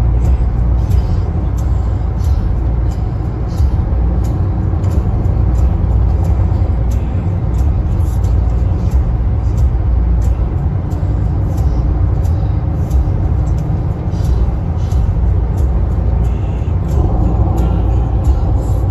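Steady low rumble of a vehicle on the move, with faint scattered ticks above it.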